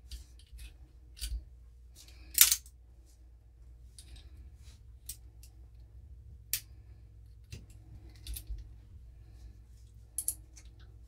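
Scattered small metallic clicks and taps from handling the parts of a partly disassembled Ruger Redhawk revolver's action, with the sharpest click about two and a half seconds in.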